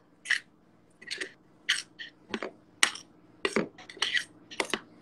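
Metal spoon mixing thick cake batter in a bowl, scooping from the bottom to fold in the baking powder: about a dozen short, irregular scrapes and taps against the bowl.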